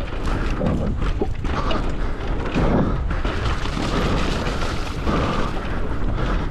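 Electric mountain bike rolling fast down a frozen, bumpy trail: a continuous irregular rumble of tyres and rattling bike, mixed with wind buffeting on the microphone.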